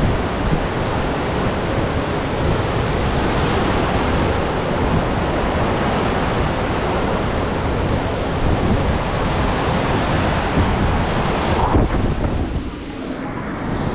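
Hurricane-force wind rushing and buffeting the microphone in a loud, steady noise, easing somewhat near the end.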